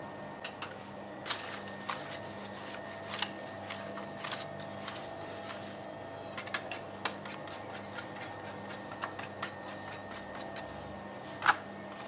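Bakery work sounds: irregular clicks, light knocks and short scrapes of handling over a steady machine hum, with one sharper knock near the end.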